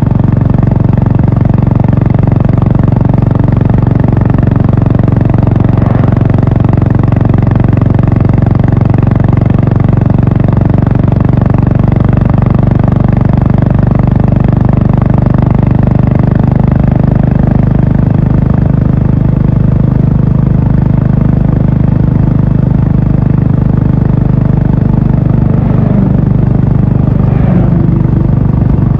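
Honda H'ness CB350's single-cylinder engine and exhaust running at a fairly steady speed while the motorcycle is ridden, easing off slightly past the middle.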